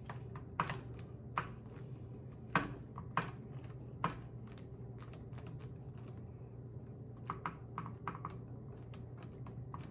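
Small sharp clicks and soft rustles of gloved fingers pressing epoxy putty into a small mold on a plastic grille. There are several in the first four seconds and a few more later, over a steady low hum.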